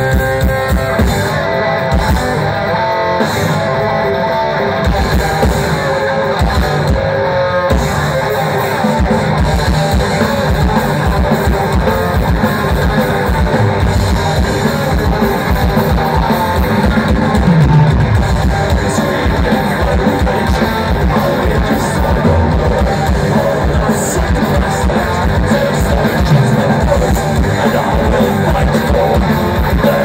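Live heavy metal band playing loud over a stage PA: distorted electric guitars, bass and drums, with the drumming turning fast and dense about eight seconds in.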